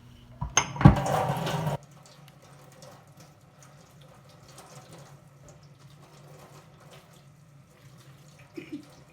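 Water from a tap at a sink, with oregano leaves being rinsed under it: a loud splash for about a second near the start, then a quieter steady run of water.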